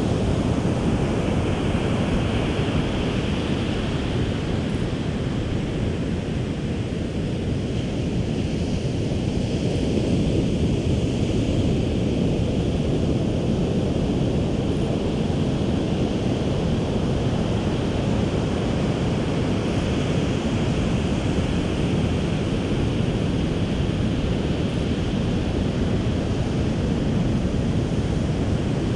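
Ocean surf washing onto the beach, a steady noise with gentle swells, mixed with wind buffeting the microphone.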